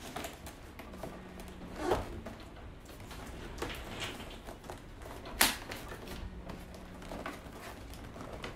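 Hands handling a cardboard drone box on a wooden table: scattered taps, scrapes and light knocks as fingers tap and pick at its top. The sharpest knock comes about five and a half seconds in.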